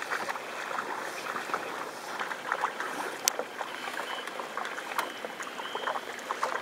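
Water splashing in small, irregular slaps and spatters, with a sharp click about three seconds in and a lighter one about five seconds in.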